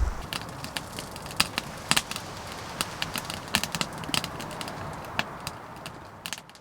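Wood fire crackling with irregular sharp pops over a steady hiss.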